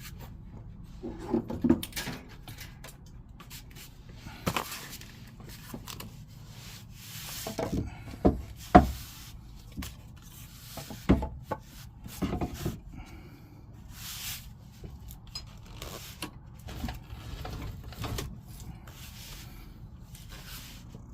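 Wooden blocks being handled and set in place, with scattered knocks and short scrapes of wood; the loudest knocks come together about eight to nine seconds in.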